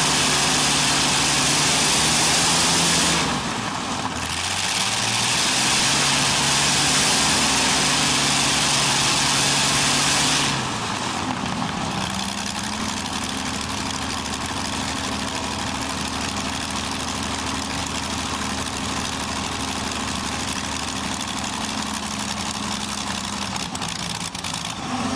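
Continental IV-1430 inverted V-12 aircraft engine running on a test stand. It runs fast, slows briefly about three seconds in, picks up again, then drops back about ten seconds in to a lower, steady speed.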